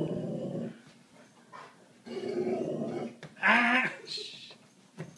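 Dog growling at a mounted moose head on the wall: two low growls, each about a second long, the second starting about two seconds in. Near the end comes a short, loud 'ah!' cry, the loudest sound.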